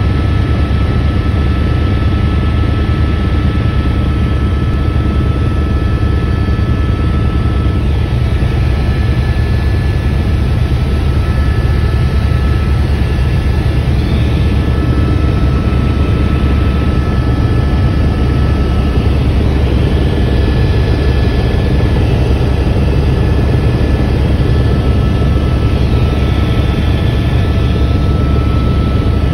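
Helicopter engine and rotors heard from inside the cabin in flight: a loud, steady low rumble with two thin, steady whines above it.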